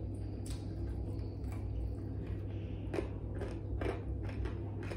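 Close-up eating sounds: chewing and fingers picking apart fish, heard as scattered small clicks and crackles over a steady low hum.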